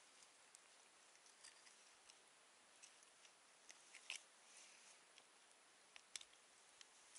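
Near silence with scattered faint, sharp clicks and crackles, the loudest about four seconds in and again just after six seconds.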